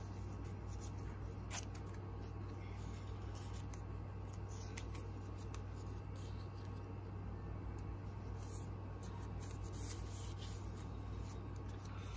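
Small paper leaflets rustling and flicking as they are handled and leafed through, giving scattered light clicks and rustles, busiest in the second half, over a steady low hum.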